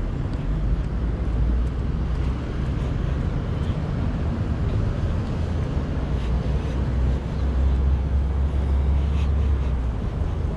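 Street ambience: a steady low rumble of road traffic, swelling about half a second in and again from about seven to nine and a half seconds.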